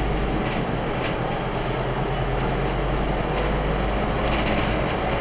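Interior ride noise on the upper deck of a Scania UNVI Urbis 2.5 DD CNG double-decker bus under way: a steady low engine drone with road and tyre noise.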